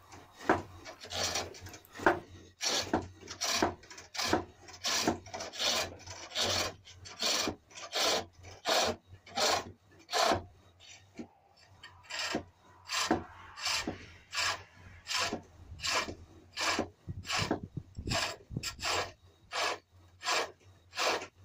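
Pole lathe hollowing a cherrywood bowl: a steel turning tool cutting into the spinning inside of the bowl in rhythmic scraping strokes, about two a second, with a brief lull a little past halfway.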